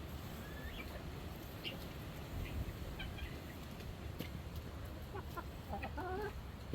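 Chickens clucking quietly: scattered short calls, with a few more pitched calls bunched together about five to six seconds in.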